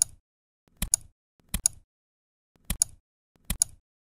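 Computer mouse clicked five times at uneven intervals, each a sharp double click of button press and release: shift-clicks marking a basketball's position frame by frame in video-tracking software.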